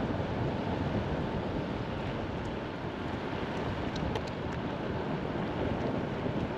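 Steady road noise of a car driving slowly, heard from inside the cabin: tyres hissing on wet pavement, with a few faint ticks about four seconds in.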